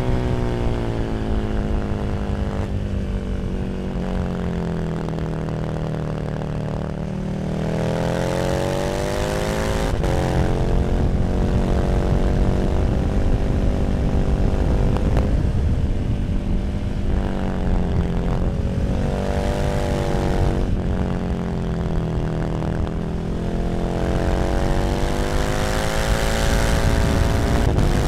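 KTM 1290 Super Duke R's V-twin running through an Arrow slip-on exhaust at road speed. The engine note slowly falls and rises several times, with a brief break about ten seconds in.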